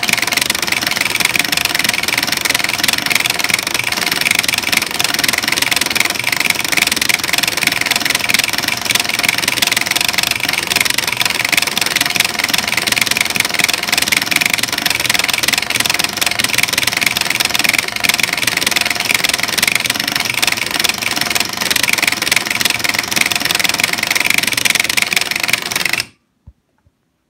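Button-pressing robot hammering a row of arcade-style push buttons at a very rapid rate, about twenty presses a second, as a dense, continuous mechanical clatter. It stops abruptly near the end as the timed run finishes.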